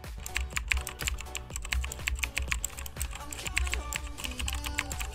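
Keyboard-typing sound effect, a rapid run of clicks, laid over background dance music with a steady beat.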